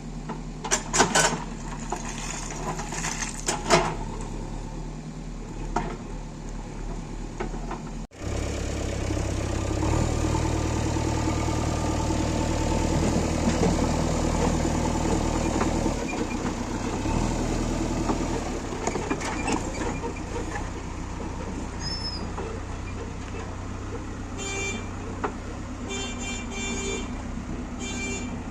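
Diesel engine of a JCB backhoe loader running, with a few sharp knocks in the first seconds. After a brief dropout about eight seconds in, the engine runs louder and steady, and short repeated beeps sound near the end.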